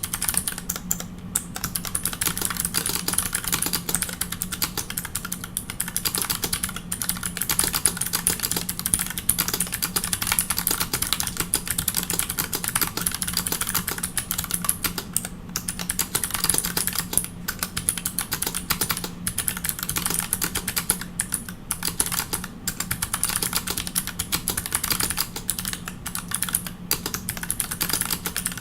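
Fast, continuous typing on a 40% mechanical keyboard with custom clicky MX-style switches and GMK keycaps: a dense stream of sharp key clicks, broken by a few brief pauses. A steady low hum runs underneath.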